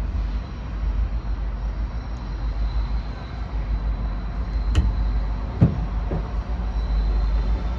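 Freight train rolling by with a steady low rumble, and three sharp clanks near the middle, the second the loudest.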